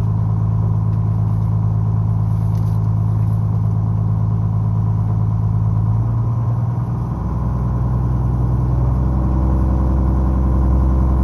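A squid fishing boat's engine running steadily while the anchor is hauled in. About six to seven seconds in, its note drops, then settles into a deeper, fuller running sound.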